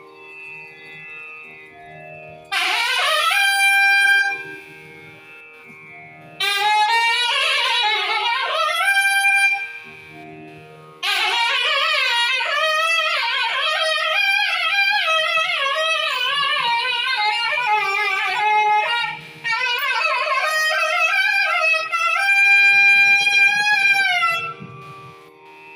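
Nadaswaram playing Carnatic melodic phrases with sliding, ornamented notes, broken by short pauses and ending on a long held note, over a steady drone.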